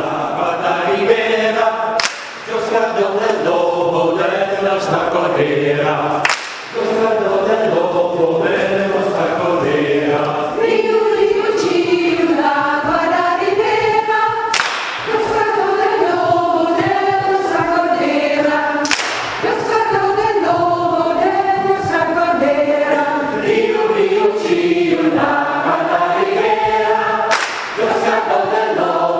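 Mixed choir singing in long phrases, with brief pauses for breath between them.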